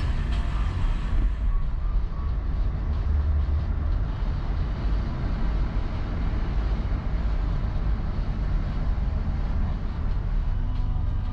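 A car driving slowly through town traffic, heard from inside its cabin: a steady low rumble with no sudden events.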